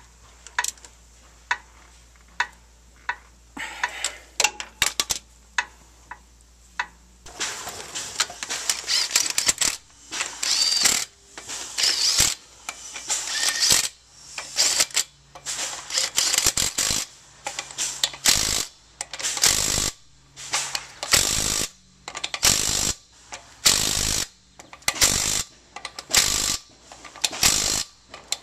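Ryobi 18V 1/2-inch cordless impact wrench hammering on a truck's lug nuts, run in repeated short bursts about a second apart after a longer continuous run. Before it come a few scattered clicks of a hand ratchet on a suspension nut.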